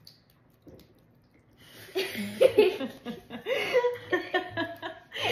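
A boy's voice making wordless laughing and playful vocal noises, starting about two seconds in after a quiet moment with a few faint clicks.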